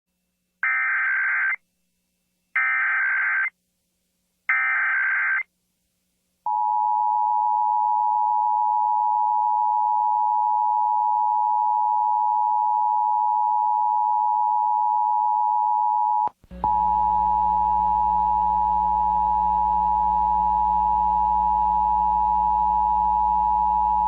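Emergency Alert System broadcast signal: three short bursts of SAME header data, each about a second long, then the EAS two-tone attention signal (853 and 960 Hz together). The tone holds steady for about ten seconds, drops out for an instant, and picks up again with a low hum behind it.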